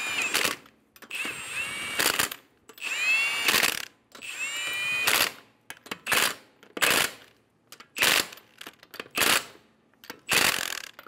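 Cordless brushless impact wrench running lug nuts onto the wheel studs in a series of bursts. The first few bursts are longer, with a whine that rises as the motor spins up. The later ones are short blips as each nut is snugged down.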